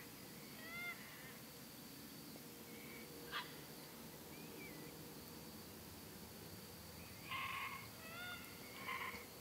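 Sulphur-crested cockatoos calling faintly: two harsh, grating squawks near the end, with short whistled calls about a second in and again shortly before the end. A single sharp click a little after three seconds in.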